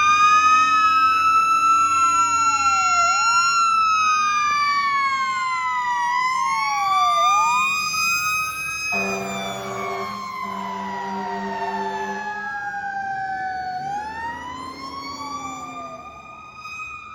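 Fire engine sirens wailing, two tones sweeping slowly up and down. About nine seconds in, the truck's air horn blasts in short pulses for a few seconds over the sirens. The sound then fades toward the end.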